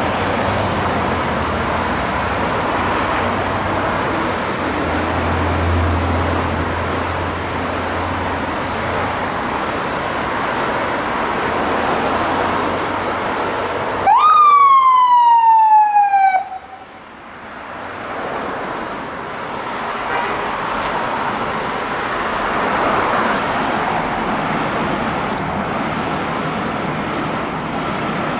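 Steady street traffic noise with a low engine rumble. About halfway through, the fire truck's siren gives a single loud whoop, sweeping up quickly and then falling over about two seconds before cutting off.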